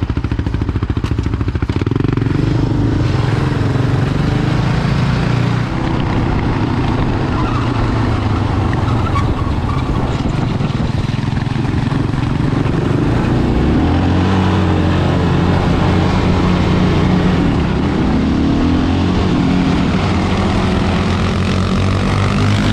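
Single-cylinder sport ATV engines running under way as the quads ride together, the engine note steady and loud, shifting up and down several times with throttle and speed.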